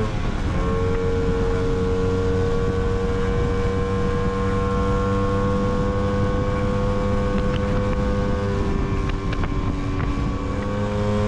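Lambretta GP125's single-cylinder two-stroke engine running under way. The note breaks briefly at the very start, then holds steady and slowly rises as the scooter gathers speed, easing slightly near the end.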